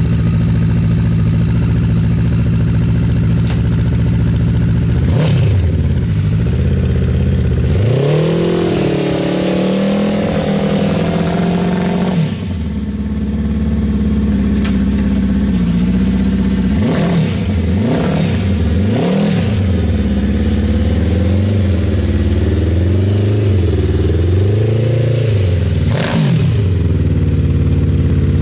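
Honda CBR1000RR inline-four motorcycle engine in a homemade off-road buggy, idling and revving up and down as the buggy is driven in low-range first gear and then in reverse. There is a longer rev a few seconds in, a drop back to idle about halfway, then a run of short rises and falls in engine speed.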